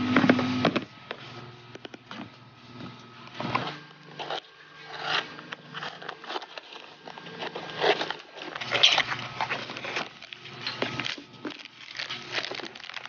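Packaging and small items being handled during an unboxing: irregular light clicks, taps and rustles.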